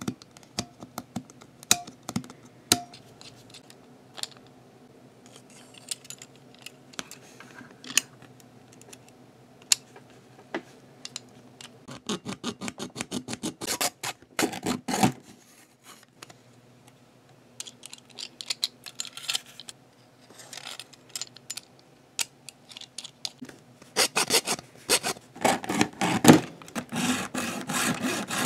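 Small hacksaw cutting into a black plastic Trackmaster toy-train chassis with quick back-and-forth rasping strokes. The strokes come in runs starting about halfway in and are loudest and most continuous near the end. Before that there are only scattered clicks and taps of the plastic parts being handled.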